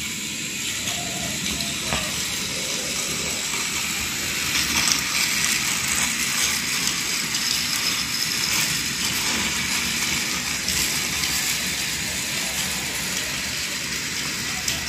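Battery-powered toy train running around its track on nearly spent batteries, a steady rolling whir of motor and wheels that swells as it passes close, from about four seconds in, and eases off as it moves away.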